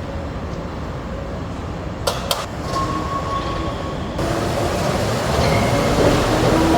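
Moving ladder truck working: a steady mechanical rumble with a faint motor whine, two sharp metallic clanks about two seconds in, and the rumble growing somewhat louder after about four seconds.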